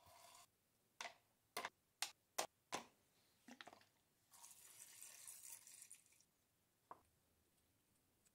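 A trickle of liquid into a plastic tub stops half a second in. Then five sharp clinks as small steel drill parts, such as the pinion gear, are dropped into the tub one after another. About two seconds of red liquid is then poured from a plastic bottle into the tub, with one faint click near the end.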